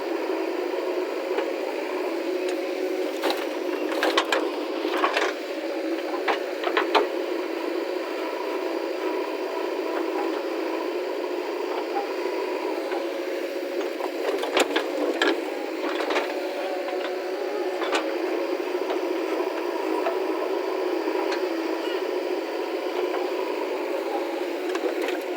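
Diesel engine of a backhoe loader or tractor running steadily, with a few sharp knocks and clanks about three to seven seconds in and again around fifteen seconds in.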